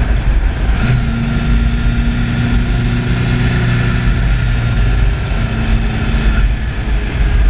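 Opel GT driving along at a steady pace, its engine humming under loud wind and road rumble on the car-mounted microphone. The engine tone comes up clearly about a second in and eases off after a few seconds.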